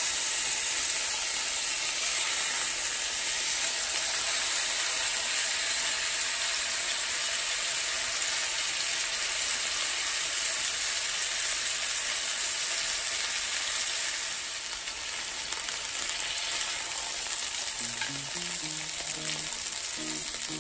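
Strip loin steaks sizzling in a hot cast iron skillet with avocado oil, a steady hiss of searing at the final sear of a reverse-seared steak. The sizzle drops a little about two-thirds of the way through.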